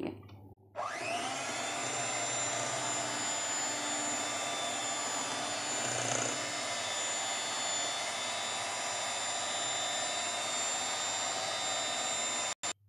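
Electric hand mixer running at a steady whine, its twin beaters whisking a thin egg, sugar and oil batter. The motor spins up about a second in and cuts off suddenly near the end.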